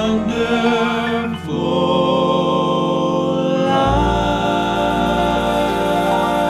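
Male gospel quartet singing in close four-part harmony, drawing out the closing line with long held notes and vibrato. A deep bass note comes in about four seconds in under the sustained final chord.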